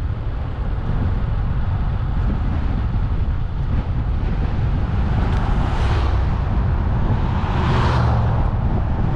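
Wind buffeting the microphone during a bike ride: a steady deep rumble, with two louder swells of rushing noise about six and eight seconds in.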